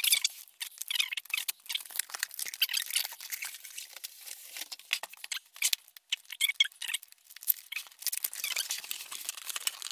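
Packing foam squeaking and scraping as it is handled and pulled from the box: irregular high squeaks and scratchy rubbing.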